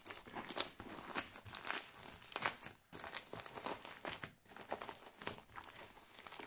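White plastic bubble mailer crinkling and rustling in the hands as it is gripped and worked open, an uneven run of crackles throughout.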